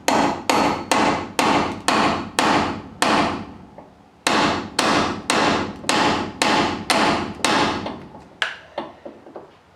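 Hammer blows on a truck door hinge, pounding the new hinge bushings flush, about two strikes a second with a short ring after each. There is a pause of about a second partway through, and a few lighter taps near the end.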